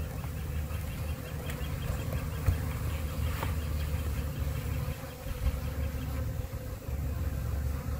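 Honey bees buzzing steadily around an open hive, with a brief knock about two and a half seconds in.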